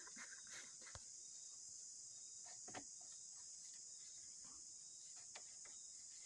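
Near silence under a faint, steady, high-pitched insect chorus, with a few soft clicks as a PVC pipe cap and pipe are handled.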